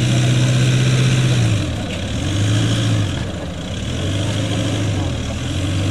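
Volkswagen Amarok pickup's engine pulling under load as the truck crawls up a steep steel ramp. It holds a steady note for about a second and a half, then is eased off and given three short bursts of throttle.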